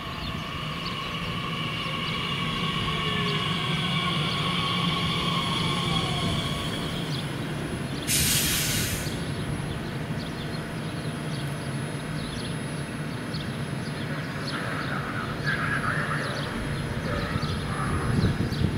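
Bombardier Talent 2 (class 442) electric multiple unit braking to a stop, its electric drive whine falling in pitch as it slows, over a steady hum of onboard equipment. About eight seconds in there is a short, sharp hiss of air, and the unit then stands humming at the platform.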